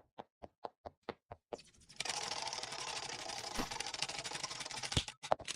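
A rapid run of sharp clicks, about five a second, followed by a steady crackling hiss that breaks off into a few more clicks near the end.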